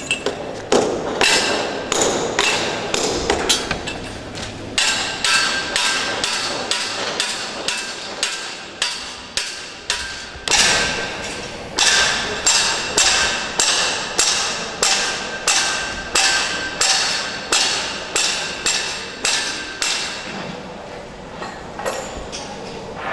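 Hammering by hand on a construction site: sharp blows about two a second, each with a brief ring. There are short pauses between runs, and the blows stop shortly before the end.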